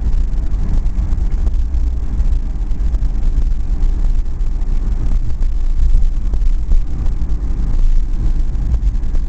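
Cabin noise of a LADA 2104 driving at road speed: a steady, deep engine and road rumble, heavy in the bass.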